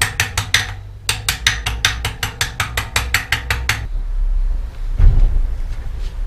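Ratchet clicking at a bicycle wheel hub as it is worked by hand: an even run of clicks at about six a second, broken by a short pause just under a second in, stopping a little before four seconds. A dull knock follows about five seconds in.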